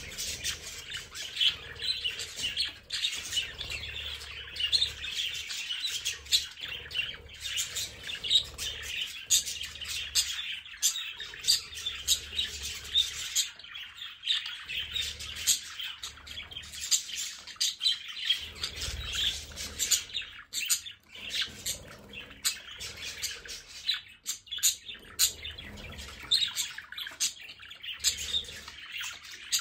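A flock of budgerigars chirping and chattering continuously, many birds calling over one another in a dense stream of short, sharp calls.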